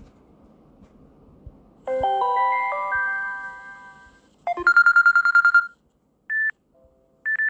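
Samsung Galaxy S9 ringtones played one after another, each cut off after a second or two. First comes a short rising chime melody, then a fast trilling ring of about ten pulses a second, then two short single beeps.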